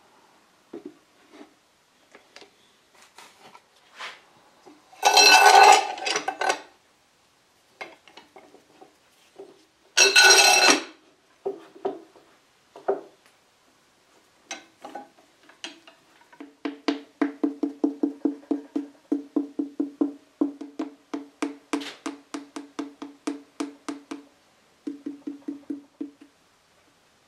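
Two loud clatters, then a long run of quick light taps on the wooden parquetry table top, about four or five a second, with a hollow wooden knock and a few short pauses. The tapping is typical of sounding out the inlay for loose pieces.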